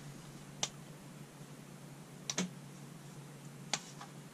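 Light plastic clicks and taps from a white plastic smoke alarm being turned over and fiddled with in the hands: one click, then a quick pair about two seconds in, then two more near the end.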